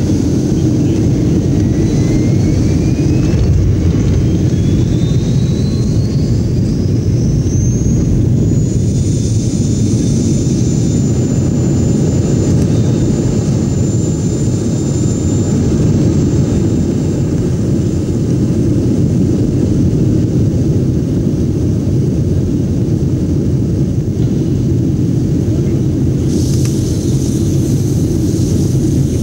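Jet airliner engines heard from inside the cabin during the takeoff run: a loud, steady low rumble with an engine whine that rises in pitch over the first several seconds as the engines spool up, then holds at a steady high pitch. Near the end a hiss comes in for a few seconds.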